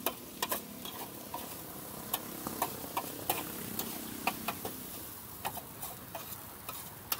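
Cooking sounds: scattered sharp clicks and crackles, several a second, over a steady hiss.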